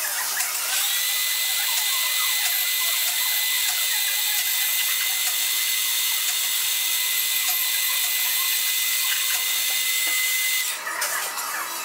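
Mini lathe starting up and running, a steady high-pitched motor whine, while a cutting tool turns a small brass rod held in the three-jaw chuck. It stops near the end.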